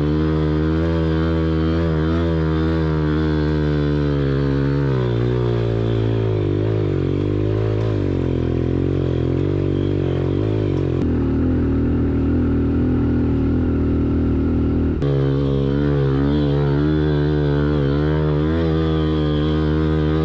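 Small 110cc single-cylinder pit bike engine running at varying revs, its pitch wavering up and down as the throttle is worked, with abrupt jumps in the sound about 11 and 15 seconds in.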